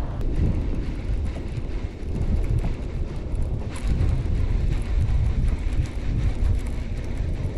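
Wind buffeting the microphone: a low, uneven rumble that rises and falls in gusts.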